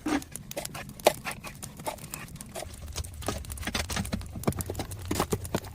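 Small wood fire catching, with irregular crackles and pops over a steady low rumble.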